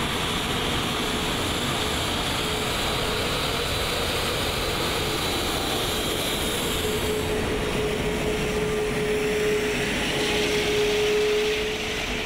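Airbus A380's four Rolls-Royce Trent 900 jet engines at taxi power as the airliner taxis past: a steady rush with a humming tone, swelling about ten seconds in and easing off just before the end.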